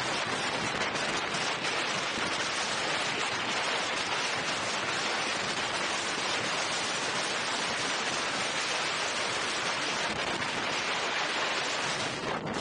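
Steady, loud wind noise buffeting the camera microphone while riding an electric unicycle at speed.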